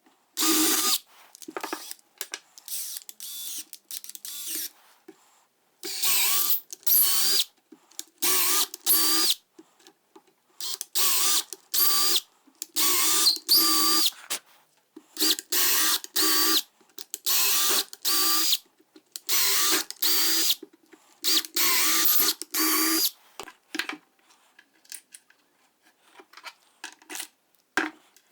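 Cordless impact driver driving 1/4-inch bolts into threads tapped in plywood to fasten casters, in a series of short bursts, each with a motor whine that rises and falls. Light clicks and taps of handling near the end.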